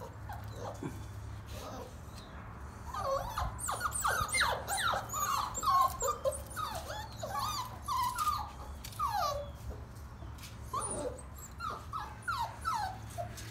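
Cockapoo puppies whining and yelping in many short, high calls that fall in pitch, sometimes overlapping, most of them in the middle several seconds.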